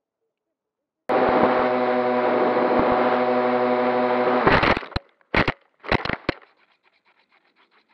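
Electric motors and propellers of a foamboard RC P-38 Lightning running steadily, heard through the onboard camera, starting suddenly about a second in. About three and a half seconds in the run breaks into several short, loud bursts, then fades to faint hiss.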